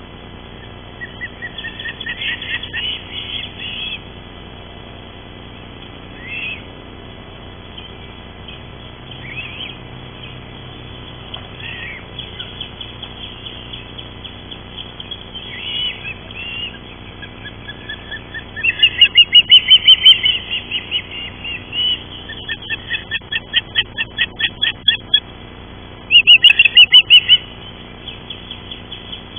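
Ospreys calling: scattered high chirps at first, then in the second half loud runs of rapid whistled chirps, several a second.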